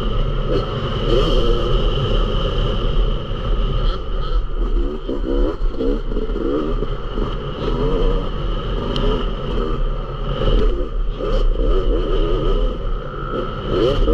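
Yamaha YZ 250 dirt bike engine running hard on a motocross track, revs rising and falling over and over as the throttle is opened and closed, with quick rising sweeps about five seconds in and again near the end. A steady low rumble lies under it.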